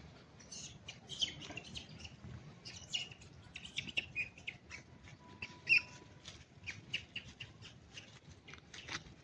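Monkeys making many short, high-pitched squeaks and chirps in quick, irregular succession.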